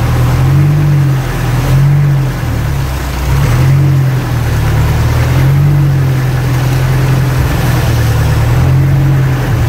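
Outrigger boat's engine running under way, its pitch swelling up and dropping back every second or two.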